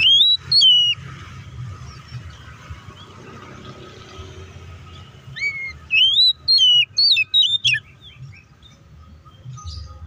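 Oriental magpie-robin singing loud, clear whistled notes that slide up and down: a short phrase at the start, then a run of about six whistles with softer chattering notes a little past halfway.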